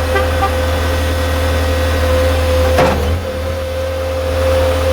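Skid steer loader engine running steadily, with a constant high whine over its low hum. A single knock comes a little under three seconds in, and the engine note dips briefly after it.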